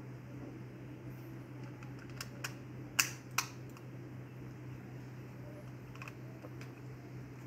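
Plastic clicks as the battery cover of a wireless optical mouse is snapped back into place: two sharp clicks about three seconds in, half a second apart, with a few fainter ticks around them.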